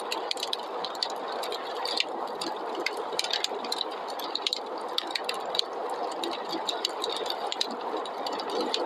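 Wood fire crackling, with frequent irregular pops and snaps, over a steady rushing snowstorm wind.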